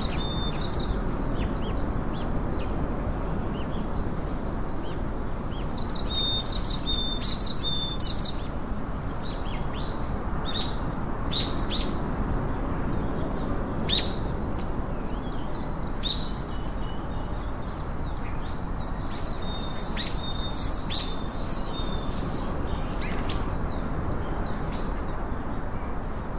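Wild birds chirping in scattered clusters of short, sharp calls and quick sweeping notes, over a steady low rushing background.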